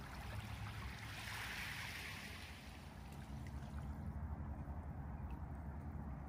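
Small waves lapping and washing over a gravel and pebble beach, with one wash swelling and fading about a second in, over a low rumble.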